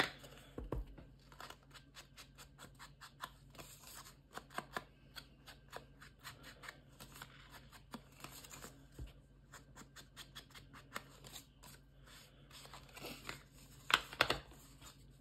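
Ink blending tool dabbed and scrubbed rapidly along the edges of a paper pocket: a quick, continuous run of soft scratchy taps on paper, with a louder knock near the end.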